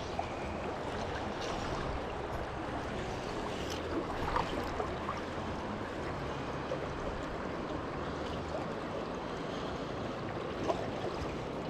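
Steady rush of flowing river water, with a couple of brief faint chirps about four seconds in and near the end.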